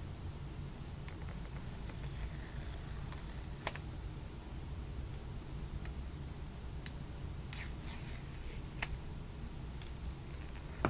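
Hands handling an iPhone 14 retail box: fingers and fingernails rubbing and tapping on the cardboard as it is turned over, with a handful of sharp clicks scattered through.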